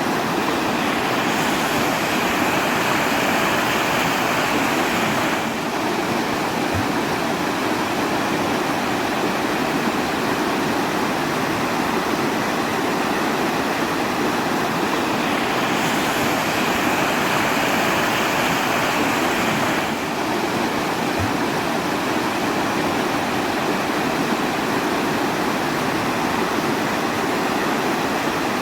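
Steady rushing water, an even unbroken hiss with no pauses, growing a little brighter for a few seconds twice.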